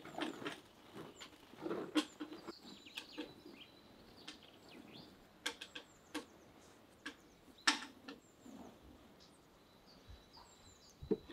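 Dried broad beans pouring from a wicker basket onto a cloth and being stirred by hand, giving scattered rattles and clicks, with small birds chirping faintly now and then.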